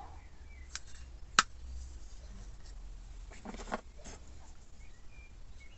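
Small plastic pot's snap-on lid popping open with one sharp click about a second and a half in, with lighter plastic handling clicks and rustling around it.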